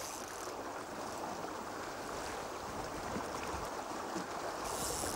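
River water rushing steadily, with a brief higher hiss shortly before the end.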